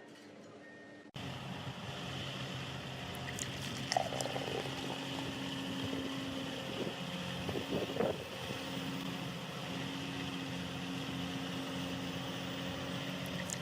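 A large engine running steadily, with wind noise on the microphone and a few brief louder knocks about four and eight seconds in.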